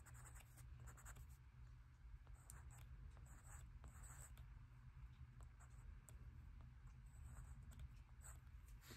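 Faint scratching of a coloured pencil on sketchbook paper in short, irregular strokes, over a low steady hum.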